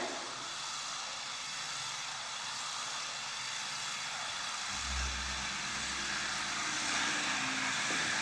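Electric slot cars running around a track: the steady, high whine of their small motors. A brief low rumble about five seconds in.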